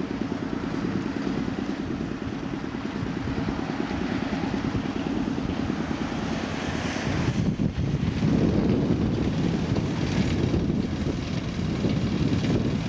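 Wind buffeting the microphone: a steady, rough low rumble that gets a little louder about halfway through.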